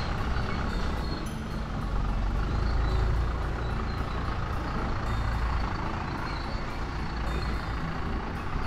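An engine running with a low, steady rumble that swells about two to three seconds in.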